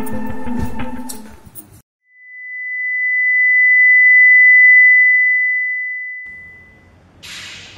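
Background music fades out, then a single steady high-pitched electronic tone swells in and fades away over about five seconds.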